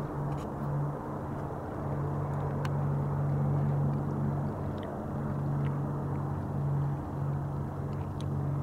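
36-pound-thrust electric trolling motor running at full power, turning a homemade egg-shaped propeller: a steady low hum that wavers slightly in strength, over an even wash of noise.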